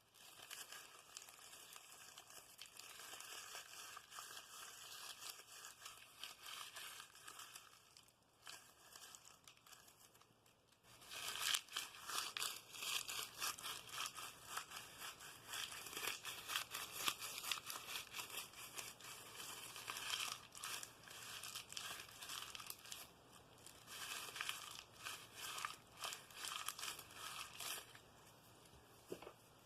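ASMR tapping and scratching: rapid, scratchy clicks. They run lighter at first, then grow louder and denser about eleven seconds in, and stop shortly before the end.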